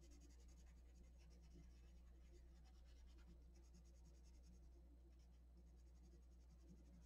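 Faint scratching of a colored pencil on paper, fast back-and-forth shading strokes, easing off about five seconds in, over a steady low hum.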